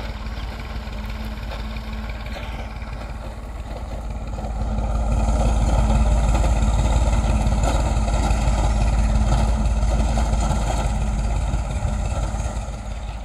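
Farm tractor engine running steadily while pulling a tine cultivator through the soil. It grows louder about four seconds in and eases off near the end.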